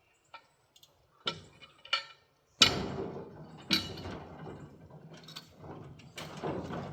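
Metal clicks and knocks, then a loud clank about two and a half seconds in, followed by several seconds of straining, rattling noise. It comes from a small electric winch and its chain and hook trying to roll a big log on a sawmill; the winch is too weak to turn the log.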